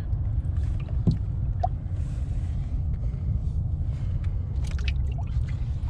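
A bass boat's livewell hatch being lifted open, with a light knock about a second in, over a steady low rumble.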